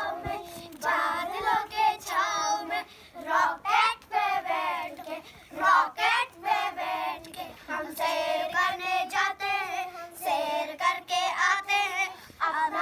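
Children singing together in high voices.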